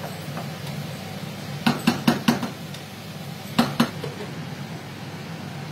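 A cooking utensil knocking against a small frying pan in which beetroot pieces are frying: four quick taps, then two more about a second and a half later, over a steady low hum.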